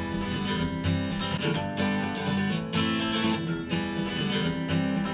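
Instrumental passage of a pop song with strummed acoustic guitar over a steady bass, heard first as the original recording and then played through a pair of Yamaha HS8 studio monitors and picked up by a microphone in the room.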